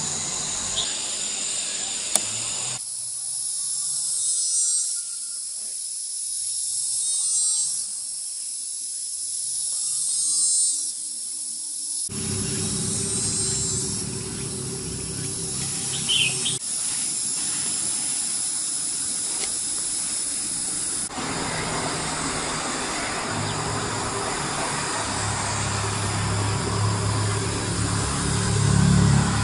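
Insects buzzing in a high-pitched chorus that swells and fades several times, with a few bird chirps. A low steady hum comes in and grows louder near the end.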